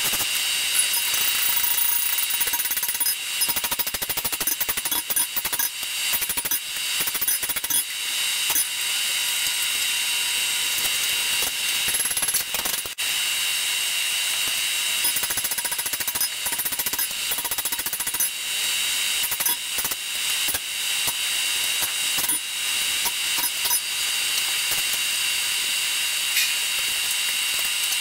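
Hammer blows on hot 5160 steel at an anvil, in runs of strikes, over a steady high fan whir.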